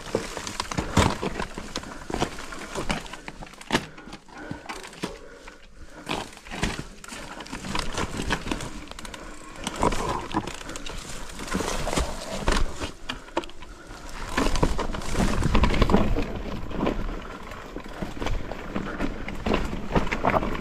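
Mountain bike rolling over rough, rocky trail ground: irregular rattling knocks from the bike with rolling tyre noise and a low rumble, loudest a little past the middle.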